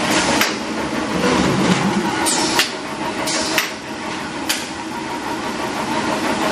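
Magellan 55-inch corrugated boxmaker running: steady mechanical machine noise with sharp clacks at uneven intervals, about half a dozen of them.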